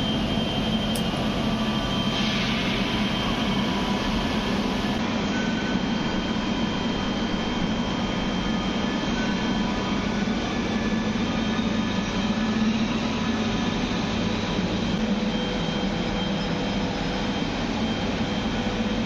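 Steady industrial machinery drone: a low hum under constant noise, with no breaks or sudden events.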